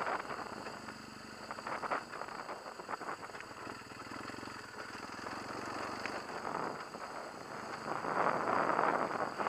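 BMW HP2 Enduro's boxer-twin engine running while the bike rides a rough dirt track, with scattered knocks and noise over it. It gets louder about a second and a half before the end.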